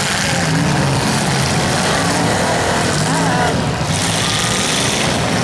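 Several demolition derby cars' engines running loud together, with engine pitch rising and falling as drivers rev and manoeuvre.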